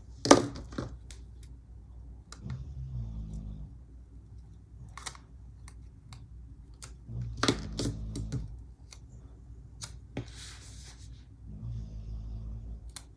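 Hands handling sticker sheets and paper on a planner page: a sharp tap just after the start, scattered clicks and taps, a cluster around seven to eight seconds, and a brief papery rustle about ten seconds in.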